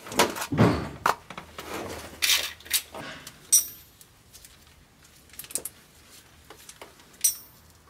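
Small metal parts and tools clinking and rattling as air brake line fittings are handled by hand: a run of clinks and knocks for the first few seconds, then quieter, with one sharp click near the end.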